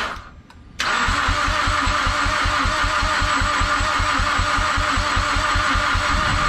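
A Mazdaspeed6's turbocharged 2.3-litre four-cylinder being cranked on the starter without catching: an even, rhythmic chug of compression strokes, about six a second, over the starter motor's steady whine. Cranking stops for about half a second just after the start, then resumes. This is the engine's no-start fault, which the owner thinks may come from a misaligned crank position sensor.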